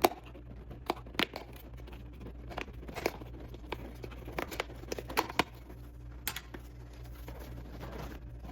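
Car seat cover being pried and pulled free of the seat pan: irregular clicks and snaps of its J-clip seat hooks letting go, with crinkling of the cover material.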